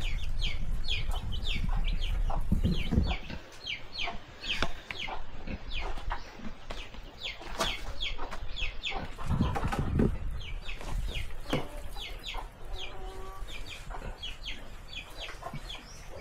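Chickens calling: many short, high, falling peeps, several a second, with a lower call about 13 seconds in. A low rumble runs under the first three seconds.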